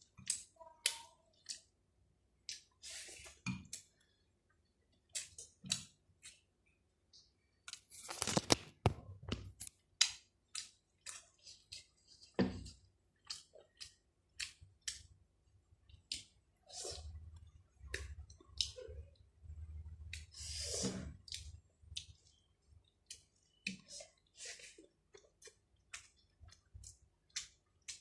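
Close-up chewing and lip-smacking while eating rice and chicken curry: a steady run of short, wet mouth clicks, with a couple of louder, longer bursts about eight seconds in and again near twenty seconds.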